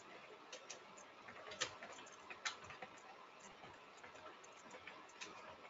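Computer keyboard being typed on: faint, irregular keystroke clicks.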